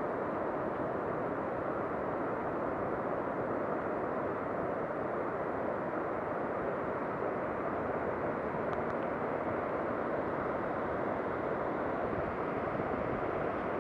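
Steady, even roar of sea surf breaking on a sandy beach.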